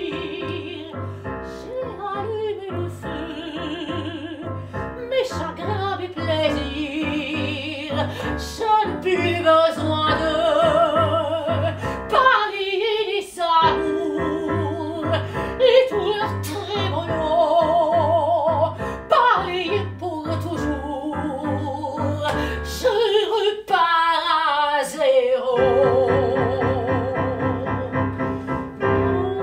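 Soprano singing a French popular song in an operatic style with wide vibrato, in phrases, accompanied on a digital piano.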